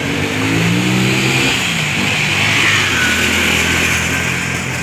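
An engine running, its pitch climbing in the first second or so and then holding steady, under a loud hiss.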